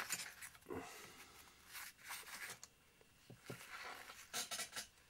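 Small scissors cutting a thin sheet for a model panel: three short bouts of cutting, each lasting under a second, with pauses in between.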